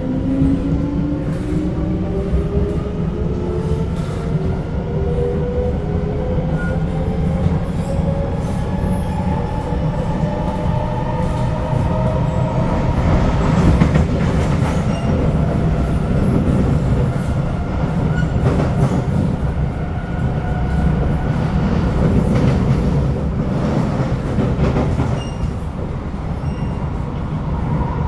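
SMRT C751B electric train heard from inside the carriage: the traction motors whine in several rising tones as the train accelerates, levelling off after about ten seconds, over a steady rumble of wheels on rail with occasional clicks.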